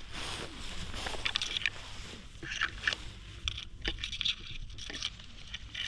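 Tall grass rustling and swishing in irregular bursts, brushed as the cat and the low-held camera move through it.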